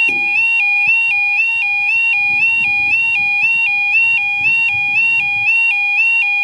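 Level crossing warning alarm sounding a continuous two-tone electronic warble that steps up and down about three times a second, warning that a train is approaching. A faint low rumble sits underneath.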